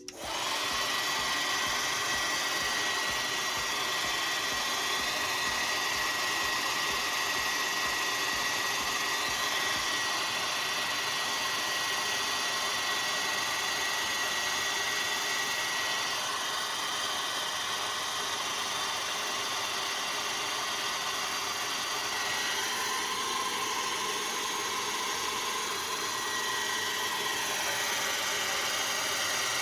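Handheld heat gun running steadily, a loud rush of air with a high whine, blowing on a car headlamp to soften its sealant so the lens can be pried off. The whine shifts in tone about halfway through.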